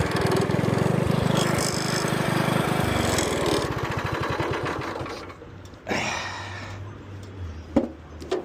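Go-kart's Predator 212 single-cylinder engine running fast, then slowing after about three seconds and settling to a low idle. The drive chain has come off, so the engine is no longer driving the kart. A brief loud noise comes near six seconds in, and a sharp click near the end.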